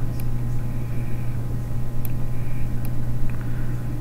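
Steady low electrical hum with hiss from the narrator's recording microphone, with a few faint brief clicks.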